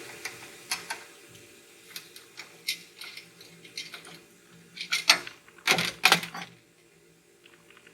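Galvanized square steel pole being handled and turned over: scattered clicks and knocks, with a louder burst of clanking and scraping about five to six seconds in.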